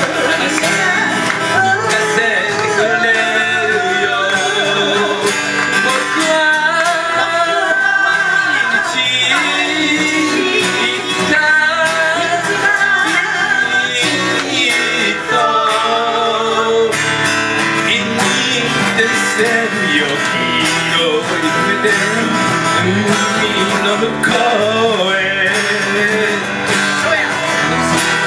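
Live band playing a folk song: strummed acoustic guitars and an electric guitar under a male lead vocal.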